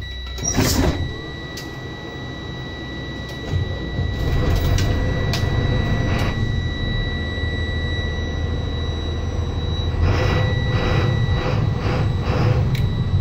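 Mercedes-Benz OM926LA inline-six diesel of a 2009 Thomas Saf-T-Liner C2 school bus cold-starting after ten days unused: it catches about three and a half seconds in and then runs at a steady idle. A steady high-pitched warning tone sounds over it until about ten seconds in, after a brief clatter just after the start.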